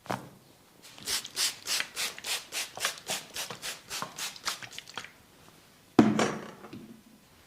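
Hands rubbing briskly in a massage, about four even strokes a second for some four seconds. A single sudden loud thump or slap follows near the end.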